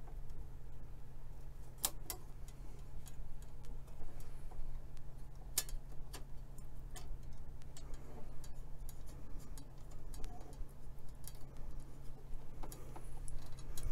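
Scattered sharp plastic clicks and taps as the plastic front panel of an Anritsu MS610C spectrum analyzer is pressed and fitted back onto the instrument, over a steady low hum.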